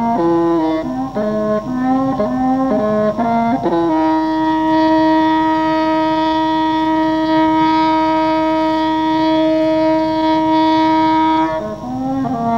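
Music from a solo reedy wind instrument: a phrase of quick notes, then one long held note lasting about seven seconds, then a few more short notes near the end.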